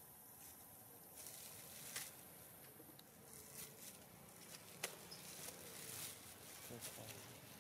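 Near silence: faint outdoor hiss with a few soft clicks, the sharpest about five seconds in.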